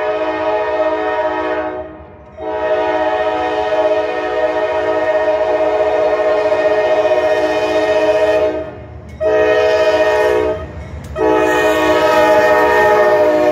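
Norfolk Southern freight locomotive's multi-chime air horn blowing the grade-crossing signal: long, long, short, long. A low rumble of the approaching train grows near the end.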